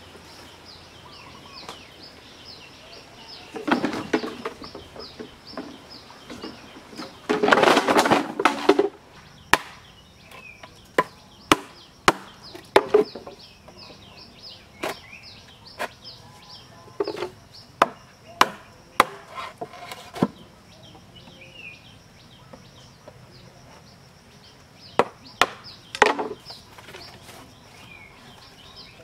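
Bush knife chopping into green bamboo poles: sharp knocks at an uneven pace, every half second to a second, from about a third of the way in. Earlier come two longer, rougher clattering stretches.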